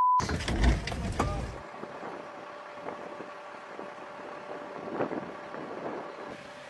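A censor bleep ends just as the sound begins, over a cut-off expletive. Then comes loud wind buffeting on the microphone for about a second and a half, easing into steady wind noise with a faint hum.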